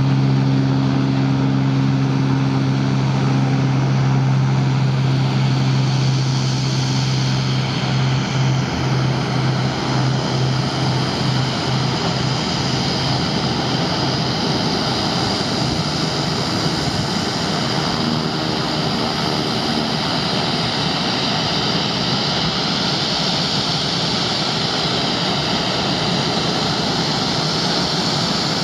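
Cessna 206 single-engine propeller plane on its takeoff run, a steady droning engine-and-propeller tone that is strong at first, then wavers and fades away over the first dozen seconds as the plane leaves. A steady rushing noise carries on after the drone has faded.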